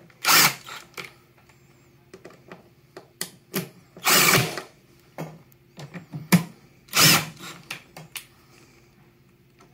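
Cordless 20V power driver running in three short bursts, about half a second each, near the start, about four seconds in and about seven seconds in, driving screws into the pump's plastic top cover. Light clicks from handling the tool and screws come between the bursts.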